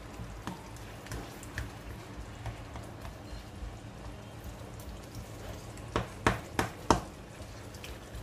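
Tomato sauce cooking in oil in a pan, sizzling with a steady hiss and scattered small pops and crackles. About six to seven seconds in come four louder, sharp clicks.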